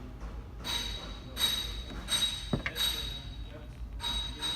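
A repeating electronic chime or beep, short pulses about every 0.7 s with a slightly longer pause near the end.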